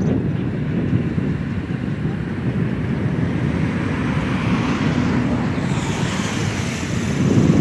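Wind buffeting the microphone over the distant working of a steam locomotive as it pulls a passenger train away. A hissing rush swells about halfway through.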